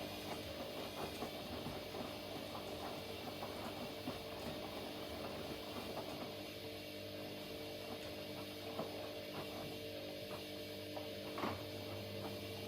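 Blomberg LWF194520QW and Hoover H3W04105TARR4-80 washing machines running mid-wash: a steady motor hum with light ticks from the turning drums, and one sharper click near the end.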